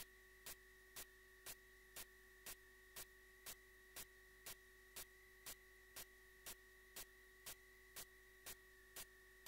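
Near silence: a faint steady electrical hum and whine with soft, evenly spaced clicks exactly twice a second.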